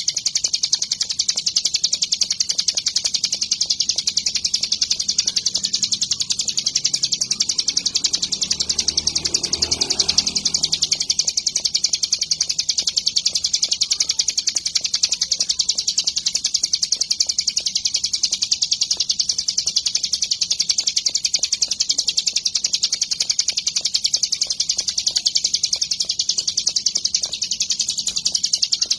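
Ciblek gunung (a prinia) singing a continuous, very rapid high-pitched chattering song with no pauses. A faint low sound rises and fades about a third of the way in.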